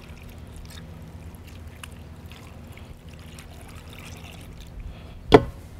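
Milk poured from a plastic measuring jug into a cast-iron Dutch oven over cubed cheese: a faint steady trickle. A single sharp knock near the end.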